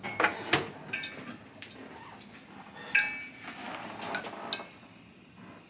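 Kitchen utensil clinking and knocking against dishes: several scattered sharp clinks, some with a short ring, the loudest near the start and about three seconds in.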